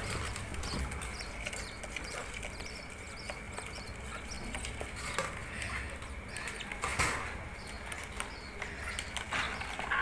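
Wire birdcage and clay nest pot being handled: scattered clicks, rattles and scrapes as a hand reaches in to take out the baby budgies, with one sharper knock about seven seconds in. Faint high chirps from the budgies come through under the handling.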